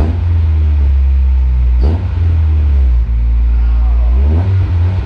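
Acura Integra's four-cylinder engine running and revving through its exhaust, with a quick rise in pitch about two seconds in and a longer climb in revs near the end.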